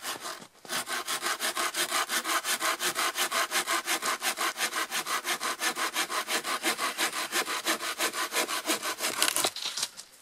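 Small curved-blade hand saw cutting through a thin branch in rapid, even strokes, with a short break about half a second in; the sawing stops about a second before the end as the branch is cut through.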